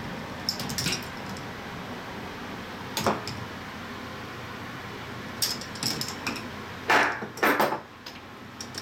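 K'nex ball machine running: plastic balls clattering through the track pieces in a scattering of short clacks, the loudest two near the end, over a steady mechanical hum.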